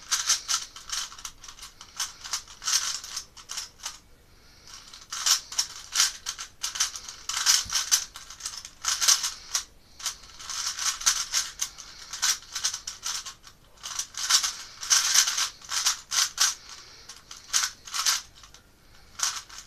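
Plastic 3x3 Rubik's cube being turned quickly by hand, its layers clicking and rattling in fast runs of moves, with a short pause about four seconds in.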